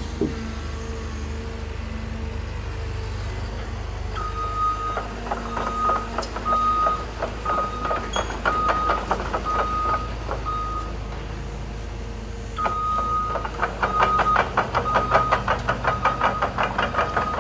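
Diesel engines of heavy construction machinery running, with a backup alarm beeping about once a second from about four seconds in, pausing briefly after ten seconds, then resuming. A rapid clatter runs along with the beeping.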